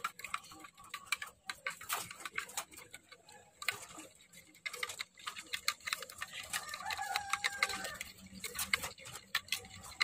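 Metal spoon stirring soaked bird feed in a small plastic cup of water, clinking and tapping against the sides in quick, irregular taps.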